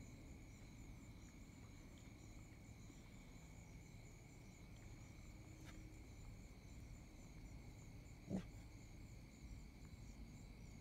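Faint chorus of night insects, a steady high-pitched trilling with a pulsing shimmer on top, and one short low-pitched sound a little over eight seconds in.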